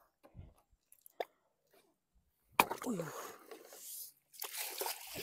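River water splashing as a mesh net fish trap is hauled up out of the water: a sudden splash about halfway through, then water sloshing and streaming off the netting.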